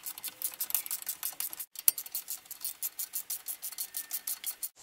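Ratchet wrench clicking rapidly and evenly as a bolt is run in on a car's front brake during reassembly. The clicking breaks off briefly about a second and a half in, with one sharp click as it resumes.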